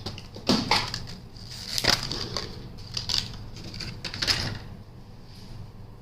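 Crackling and clicking from handling a Crucial 2 TB M.2 SSD and its plastic packaging: about five sharp crackles spread over the first four seconds or so, then quieter.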